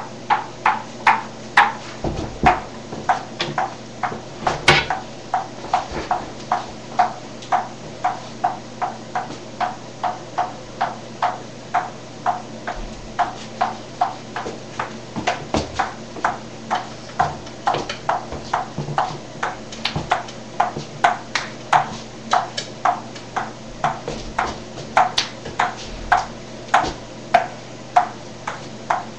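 A table tennis ball bouncing in a steady rhythm, about two to three sharp hits a second.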